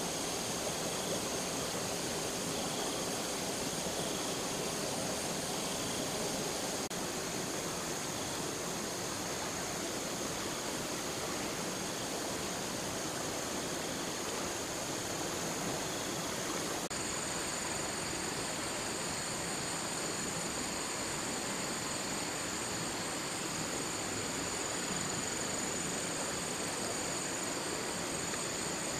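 Steady rush of running stream water, with a constant high insect drone over it that changes a little past halfway.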